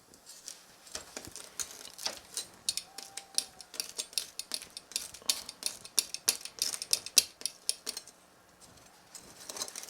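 Hot oil crackling and popping around freshly fried pizza dough: rapid, irregular crackles that thin out and die down about eight seconds in.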